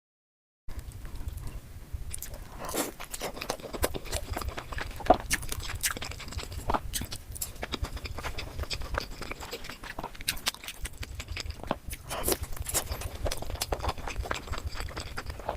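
Close-miked eating sounds: a person biting and chewing with many small wet clicks and smacks, starting just under a second in after silence.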